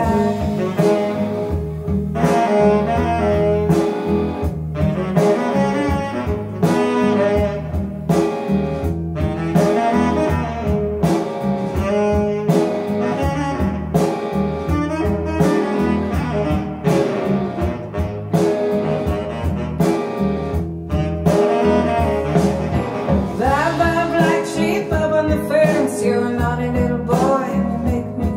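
A pop-rock song playing back through Xavian Giulietta floor-standing loudspeakers driven by a Carver CM1090 amplifier, in a passage without sung words, with a steady beat.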